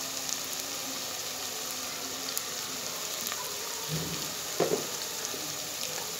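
Spice masala sizzling steadily as it fries in oil in a nonstick pot, with a couple of soft knocks about two-thirds of the way through.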